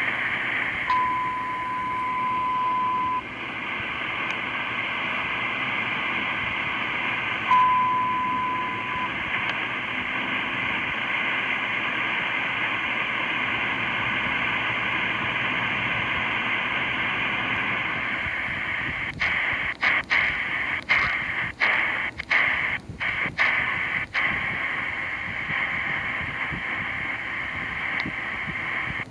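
Shortwave receiver hiss carrying a Morse code tone of about 1 kHz keyed extremely slowly: two long steady tones, one about two seconds long a second in and one about a second and a half long some seven seconds later. Past the middle, a run of sharp crackling clicks breaks into the hiss.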